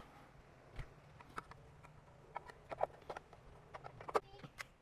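Scattered light clicks and knocks at irregular moments as the plastic generator inlet and its cover are handled and pressed into the metal inlet box.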